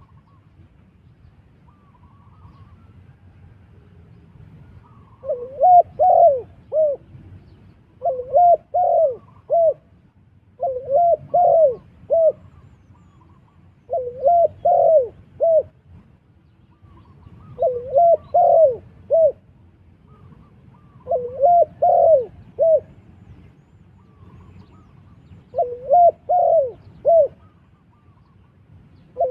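A dove cooing in short phrases of three or four coos, repeated about every three seconds from about five seconds in.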